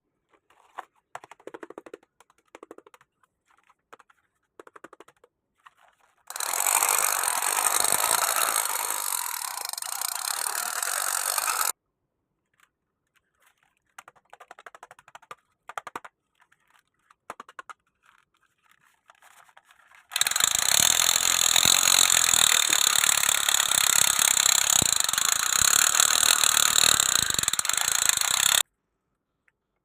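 Toy machine gun firing in two long rapid rattling bursts, one of about five seconds and a longer one of about eight seconds. Scattered clicks of the plastic toy being handled come before and between the bursts.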